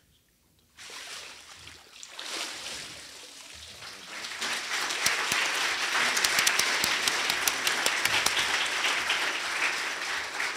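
Water sloshing in a baptistry as a man is raised from immersion, about a second in, followed by a congregation applauding. The applause builds, holds steady, and eases slightly near the end.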